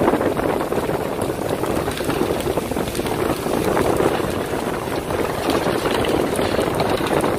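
Steady rushing of water with wind buffeting the microphone aboard a fishing boat at sea, full of small crackles and no clear tone.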